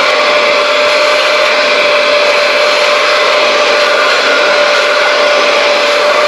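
Vacuum-type electric motor running steadily: rushing air with a constant whine.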